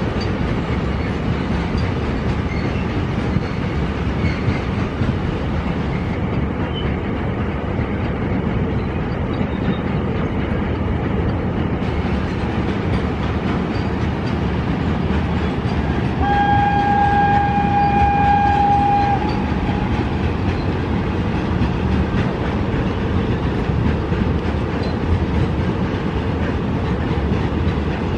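Double-stack container freight train rolling past, a steady rumble of the wagons' wheels on the rails. About halfway through, a locomotive horn sounds one long, steady note for about three seconds.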